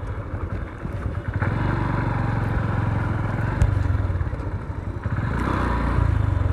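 Motorcycle engine running as the bike is ridden slowly, getting louder about a second and a half in, easing briefly around five seconds and picking up again. A single sharp knock is heard about halfway through.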